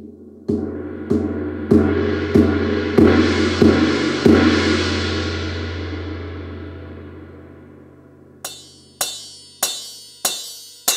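Roland TAIKO-1 electronic taiko playing its "Alternative" sound bank. Eight evenly spaced drum strikes, about two every second, build into a long, shimmering gong-like ring that slowly fades. Near the end a different, sharper sound follows: several crisp hits, each with a brief ringing tone.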